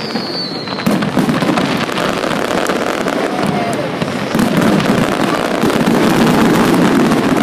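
Fireworks display: aerial shells bursting overhead in a rapid run of bangs and crackles, growing louder and denser about four seconds in.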